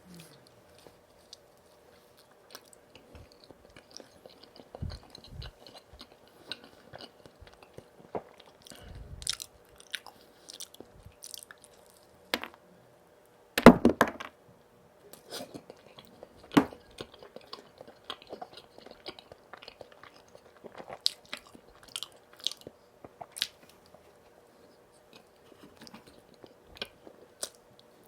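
Close-miked eating of donuts: bites and wet chewing with small crackles, loudest in a burst about halfway through.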